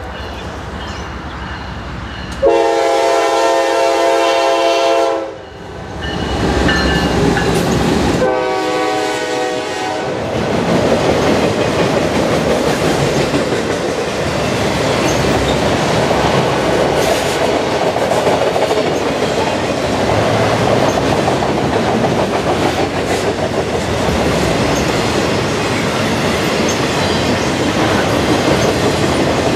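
Norfolk Southern freight train led by two GE ES44DC locomotives sounding its horn as it approaches: one blast fading near the start, a loud long blast about two seconds in and a shorter one about eight seconds in. From about ten seconds on, the train passes close with a steady rumble and the clatter of the autorack cars' wheels on the rails.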